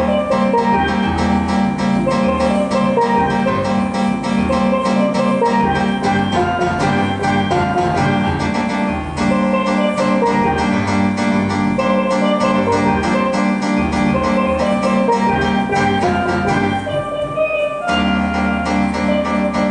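Steelpan playing a melody over an accompaniment with a steady bass line.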